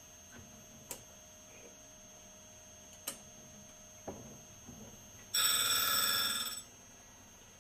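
A few light clicks and knocks, then about five seconds in a loud, bright ringing tone lasting a little over a second, which starts suddenly and fades out.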